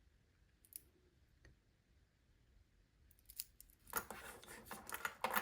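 Metal watch bracelet and its folding clasp being handled: a couple of faint clicks, then a quick run of clicking and rattling in the last two seconds.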